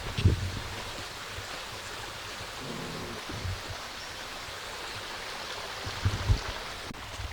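A creek's flowing water rushing steadily, with a few low thumps about half a second in, around the middle and near the end.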